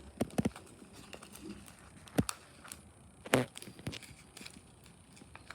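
Scattered light taps, clicks and rustles of hands working with paper and sticky tape on a paper craft. A few sharper knocks stand out: several right at the start, one about two seconds in, and the loudest about three and a half seconds in.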